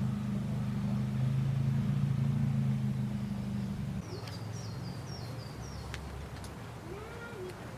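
A steady low engine hum, like a car idling, that cuts off about four seconds in; birds then chirp, a quick run of short high notes followed by a lower call near the end.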